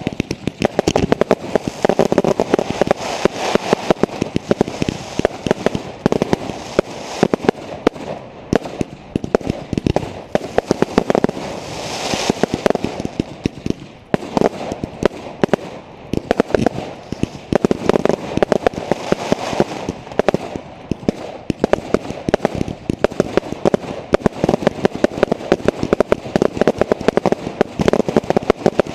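Fireworks going off in a dense, unbroken barrage of bangs and crackling, many reports a second. About twelve seconds in there is a brief hissing rush.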